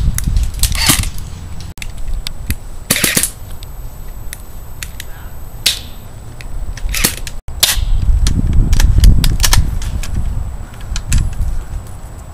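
Airsoft guns firing scattered single pops, with wind rumbling on the microphone.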